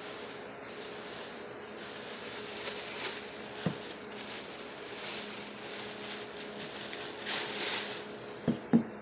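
Thin plastic shopping bag rustling and crinkling as it is handled and items are taken out of it, in uneven swells. There is one knock a little over a third of the way in, and two sharp knocks near the end as things are set down on a hard surface. A faint steady hum runs underneath.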